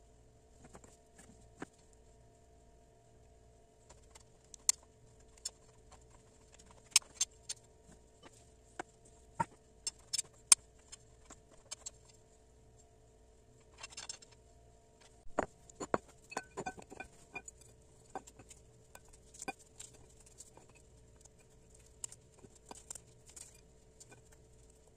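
Scattered light clicks and taps of a metal spatula against a glass cake stand and bowl while cream frosting is spread on a layer cake, over a faint steady hum.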